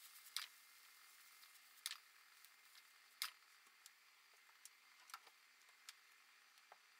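Eggplant and onion frying quietly in a frying pan: a faint hiss with scattered sharp pops and crackles, the three loudest in the first half.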